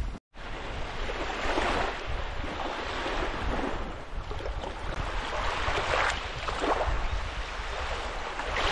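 Small waves of the Bothnian Sea lapping and washing onto a sandy shore, surging every second or two, with wind buffeting the microphone as a low rumble.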